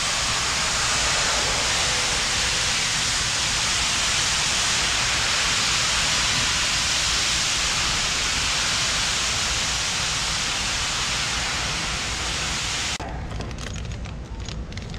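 A loud, steady hiss like rushing air that cuts off abruptly about thirteen seconds in. After it, light clicks and crinkling of small plastic bags of bolts being handled in a store bin.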